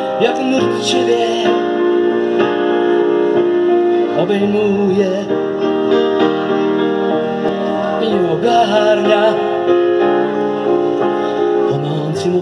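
Grand piano played live in sustained, slow chords, with a wavering melodic line rising over it about 4 seconds in and again near 8 seconds.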